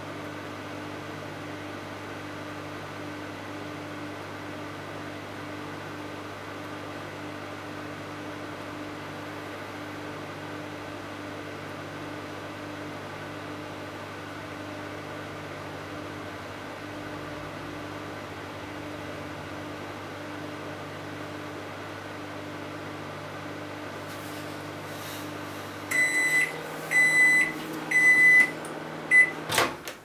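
Microwave oven running with a steady hum while it heats. Near the end the hum stops as the timer runs out, the oven gives four beeps to signal it has finished, and the door latch clicks open.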